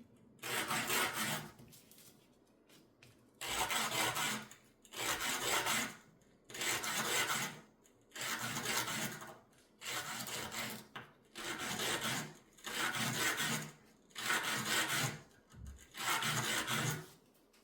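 Fine sanding of a piece of jewelry by hand: about ten separate rubbing strokes, each about a second long, with short pauses between.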